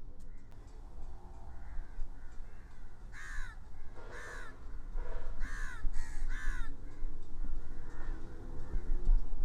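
A bird gives a run of about five harsh, cawing calls, each a short arched squawk, over a steady low rumble that grows louder near the end.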